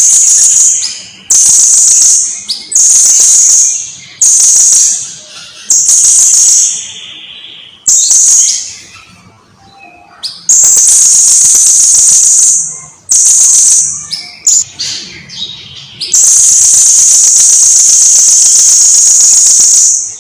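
Blue-crowned hanging parrot (serindit) calling: loud, high-pitched shrill calls repeated in short bursts, with a longer unbroken run of about two and a half seconds midway and another of several seconds near the end.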